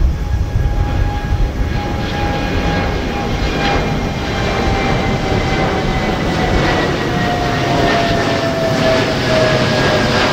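Boeing 787-8 Dreamliner's twin turbofan jet engines at climb power as the airliner passes overhead just after takeoff: a loud steady rumble with a whining tone that slowly falls in pitch as it goes by.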